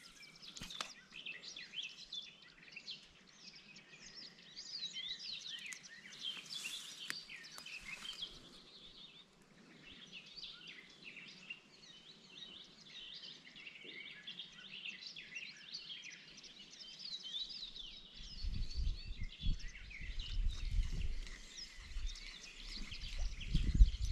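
Several songbirds singing and chirping in quick, overlapping calls. From about eighteen seconds in, an uneven low rumble on the microphone comes in under the birdsong.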